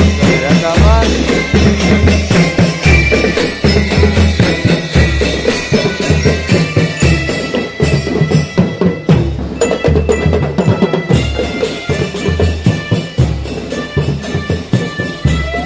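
Drum-led percussion music: a repeated bass-drum beat with quicker drum strokes over it.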